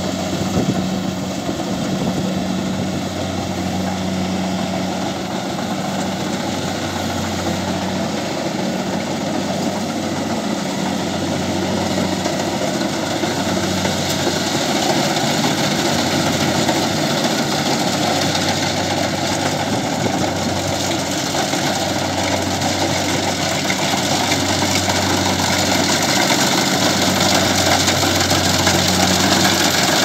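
Kubota rice combine harvester running steadily as it works through the standing rice. The engine drone grows gradually louder as the machine comes closer.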